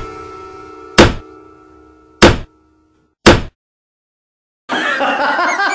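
Three loud thuds on a wooden door, about a second apart, over held background music that stops after the second thud. A short silence follows, and other sound comes in near the end.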